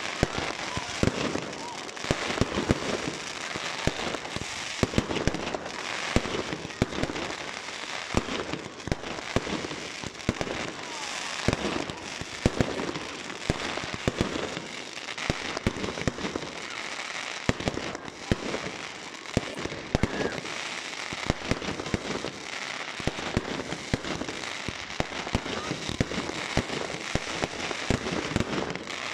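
Fireworks display: a continuous rapid barrage of aerial shells bursting, one sharp bang after another.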